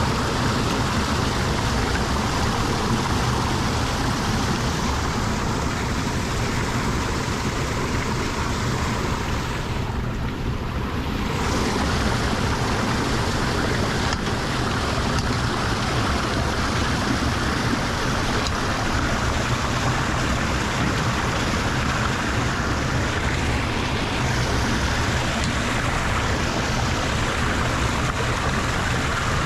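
Steady rush of water flowing into a lake drain, briefly duller about ten seconds in.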